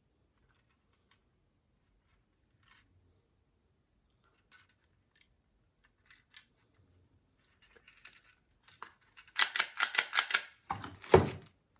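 Faint scattered ticks, then near the end a quick run of loud, sharp plastic clicks followed by a second short cluster of clicks.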